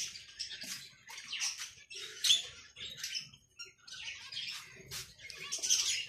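Caged pet birds from a mixed aviary of lovebirds, cockatiels and finches chirping, many short, high calls coming one after another without pause.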